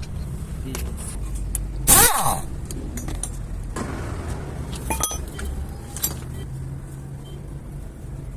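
Car on the road with a steady low drone. A short, loud swish about two seconds in falls in pitch, and a few sharp clicks come around five and six seconds in.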